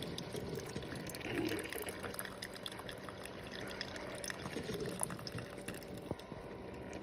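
Hamilton Beach FlexBrew single-serve coffee maker brewing, with coffee trickling and dripping into the cup over a steady low hum from the machine.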